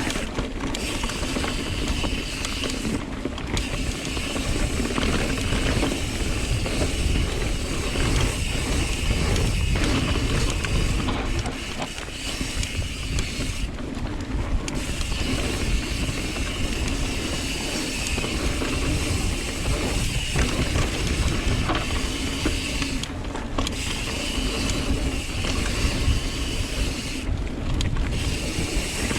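Mountain bike ridden downhill on a dirt trail: steady wind rush on a helmet-mounted action camera's microphone, with the bike rattling over the ground.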